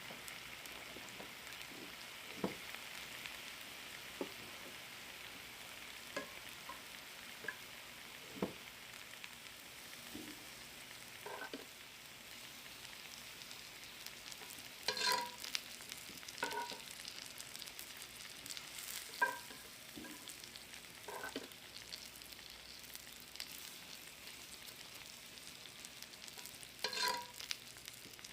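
Food frying in oil in a pan with a steady quiet sizzle, while a utensil stirs and knocks against the pan, giving several short metallic clinks.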